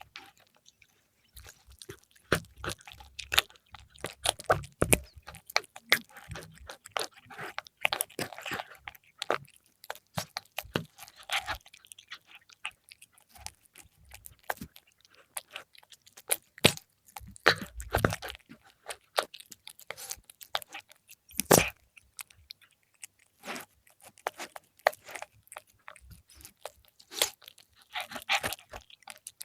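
A cat chewing and crunching fried milkfish: irregular crisp crunches and wet chewing clicks, bite after bite, with brief pauses.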